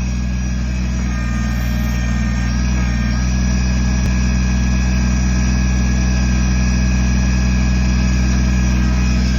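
Kubota BX23S tractor-loader-backhoe's three-cylinder diesel engine running steadily, growing slightly louder about three seconds in.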